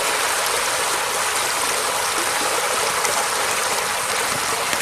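A steady rushing noise with no pitch to it, even throughout and strongest in the upper range.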